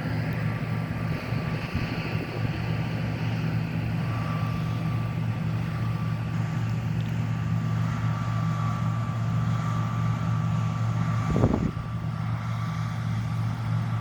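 John Deere T670i combine harvester running steadily as it cuts: a constant low engine drone with a thin steady whine above it. A brief thump about eleven seconds in.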